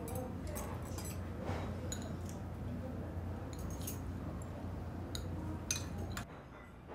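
Scattered light clinks of dishes, cups and cutlery at a meal table, about ten small taps, over a steady low room hum that drops away near the end.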